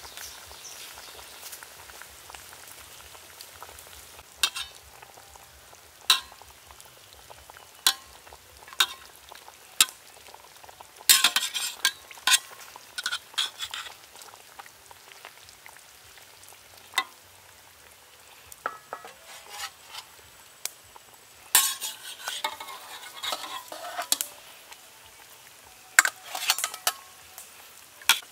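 Chicken legs sizzling in a bubbling sauce in a metal pot, with a steady hiss. A metal ladle clinks and scrapes against the pot at intervals, in quick runs of knocks around the middle and near the end.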